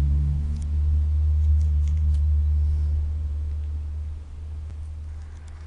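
A loud, low, steady hum of a few held tones with faint overtones, fading away from about four seconds in.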